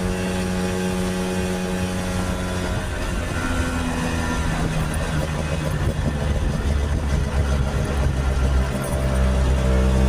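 1964 Lambretta Series 3 scooter's single-cylinder two-stroke engine running on the road, its note shifting a few times as the revs change.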